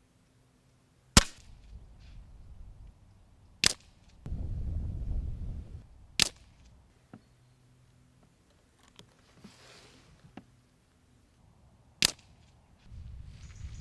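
Air Arms S400 Carbine, a .177 PCP air rifle, firing four single shots, each a sharp crack. The first three come about two and a half seconds apart and the fourth after a longer pause of about six seconds.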